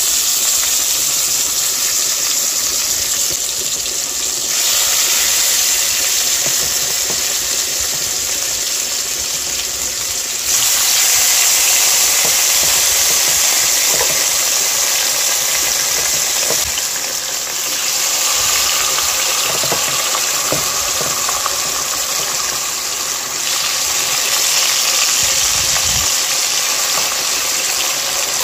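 Marinated pork tocino slices frying in hot oil in a nonstick pan: a loud, steady sizzle that steps up about four seconds in and again about ten seconds in.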